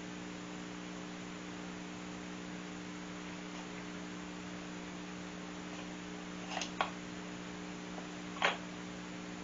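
Steady electrical mains hum of several fixed tones, with a few brief sharp clicks or taps about two-thirds of the way in.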